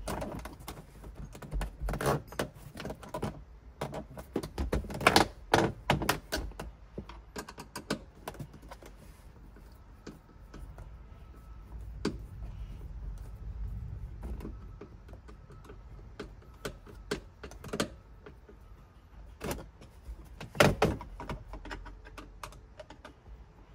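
Irregular sharp clicks and knocks of a car sun visor's plastic body and mount being handled as its mounting screws are tightened with a Phillips screwdriver. The clicks come in clusters, busiest in the first several seconds and again about twenty seconds in, with quieter stretches between.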